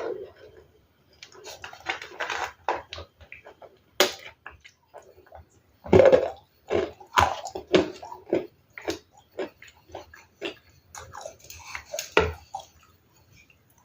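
Ice being bitten and chewed close to the microphone: a run of irregular, sharp, crackly crunches, loudest about six seconds in and again near the end.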